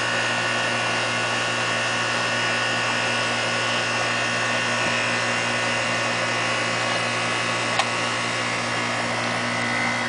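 A 2.5-ton Nordyne condensing unit's compressor runs with a steady hum, pumping the system down against a closed liquid valve. The technician suspects its valves are bleeding by. There is a single sharp click about eight seconds in.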